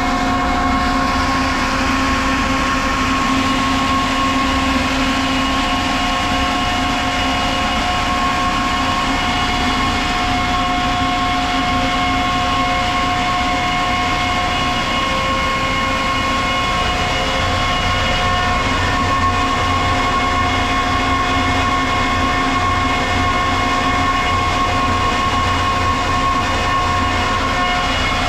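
Ingersoll Rand SSR-EPE50 50 hp air-cooled rotary screw air compressor running: a loud, steady mechanical drone with several steady tones over it.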